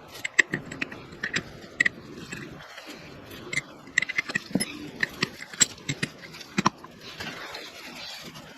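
Metal parts of a power steering pump clinking and scraping as they are handled during disassembly, an irregular run of sharp clicks that stops near the end.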